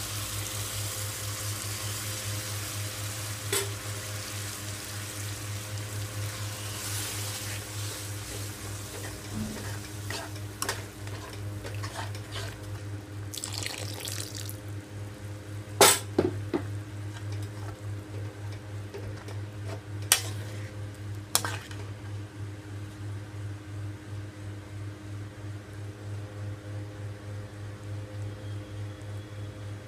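Coconut milk poured into a hot pan of chicken masala, hissing and splashing for the first several seconds, then stirred with a metal spatula that knocks against the pan a few times, loudest about halfway through. A steady low hum runs underneath.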